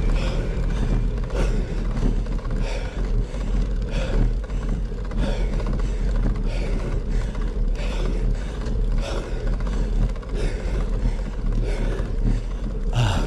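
Steady wind rumble on the microphone of a riding cyclist, with a short sound repeating about every 1.3 seconds.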